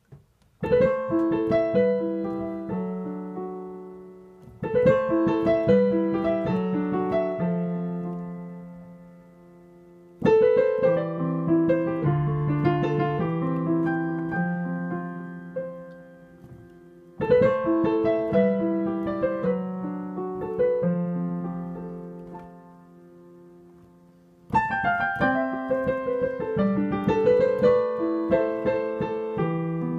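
Solo piano improvisation played with both hands: chords and melody in five phrases, each opening with a loudly struck chord that rings and dies away before the next begins, the last still going at the end.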